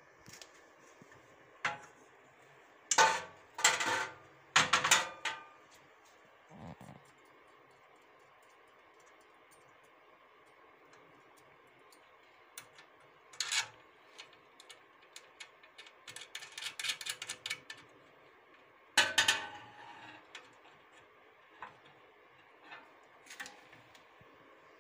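Metal clinks, knocks and rattles from handling and fitting the steel pedal linkage rod of an industrial sewing machine stand. They come in scattered bursts, loudest a few seconds in and again near two-thirds through, with a run of quick rattling ticks just before that.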